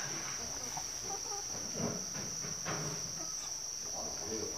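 Insects chirring steadily at one high pitch, with a few faint soft sounds as vinegar is poured into a duck's held-open bill.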